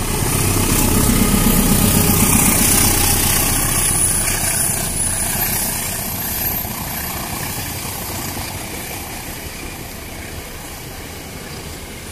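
A CC201 diesel-electric locomotive passes close by with its engine running loud, loudest in the first few seconds. The passenger coaches then roll past with a steady rumble of wheels on rail that slowly fades.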